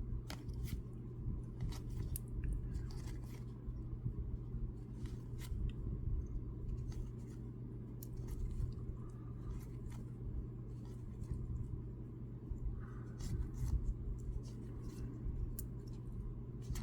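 Baseball trading cards being handled and flipped through, making scattered light clicks, snaps and rustles.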